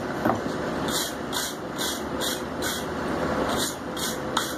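Steady roar of the forge, with a rhythmic run of short high scratching strokes about two and a half a second from about a second in, and a light knock near the start and near the end.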